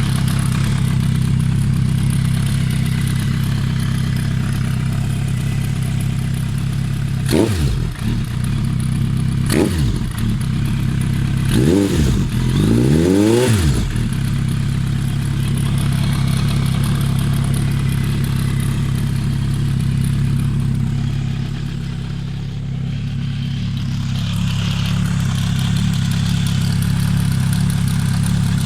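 Suzuki GSF1200 Bandit's air/oil-cooled inline-four idling cold. It is blipped twice, then given several quick revs in a row before settling back to a steady idle. The owner is showing a strange noise that this engine makes when cold.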